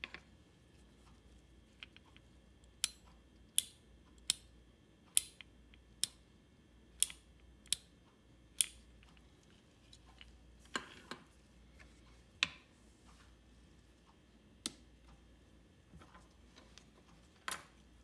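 Snap-action contacts of an ME-8111 plunger limit switch clicking as its plunger is pressed and released by hand: a run of sharp clicks about once a second, then a few more spaced-out clicks and knocks.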